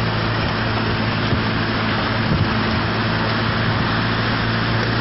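A vehicle engine running steadily with a constant low hum, under a loud, steady rushing noise from the muddy flood flow of a huayco.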